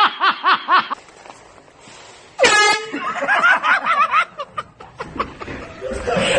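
A sudden short air horn blast about two and a half seconds in, between bursts of laughter.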